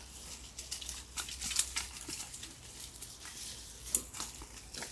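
Dry twigs and fallen stalks crackling and snapping irregularly as they are trodden and pushed through in brush, with two sharper snaps, one about a second and a half in and one just before four seconds.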